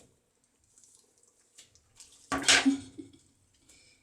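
Water splashing once, loudly and briefly, about two and a half seconds in, as a kitten is bathed. Faint small clicks and rustles come before it.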